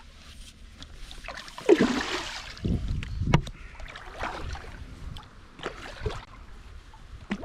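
Paddle splashing in the water with irregular strokes, and a few sharp knocks of the paddle or feet against the paddleboard as it is brought to a stop.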